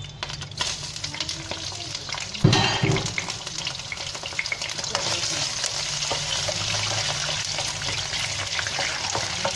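Whole prawns going into hot oil in a wok: a loud sizzling burst as they hit the oil about two and a half seconds in, then steady crackling as they fry. A spatula stirs them.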